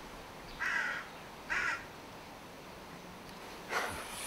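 A crow cawing twice, about a second apart, short harsh calls. Near the end comes one brief, sharper sound with a thin high ringing after it.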